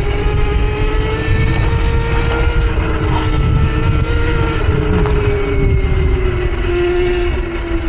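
Rizzler electric minibike's motor whining steadily while being ridden on snow, its pitch easing down near the end as it slows, over a continuous low rumble.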